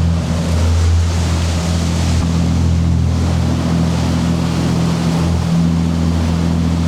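Motor yacht's diesel engines droning steadily underway, under an even rushing hiss of wind and water.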